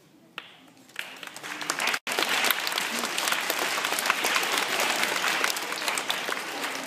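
Audience applauding: a few scattered claps about a second in build into full, dense applause from many hands, which breaks off for an instant about two seconds in and stops suddenly at the end.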